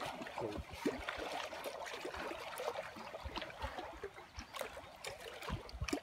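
Lake water lapping and splashing close by, with scattered small knocks.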